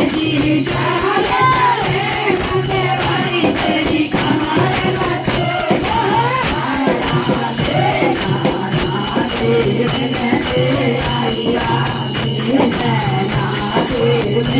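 Indian folk music in the Holi rasiya style, an instrumental passage with a fast, steady jingling percussion beat under a wavering melody line.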